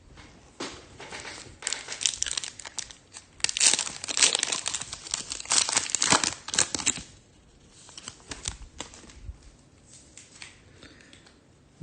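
Foil wrapper of a Topps Chrome trading card pack crinkling and tearing as it is opened, loud for the first several seconds, then fainter rustling.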